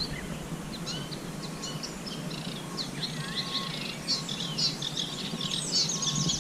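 Small songbirds singing, a busy overlapping chatter of short, quick chirps and warbling notes.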